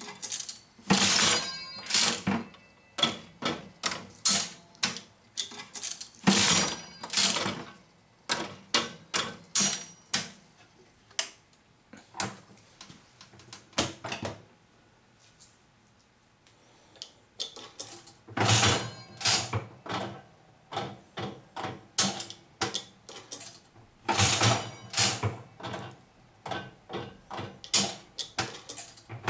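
Aristocrat Elite mechanical penny slot machine being played over and over: each handle pull sets off a few seconds of rapid mechanical clicking and clunking as the reels spin and stop. There is a lull of a few seconds about halfway through.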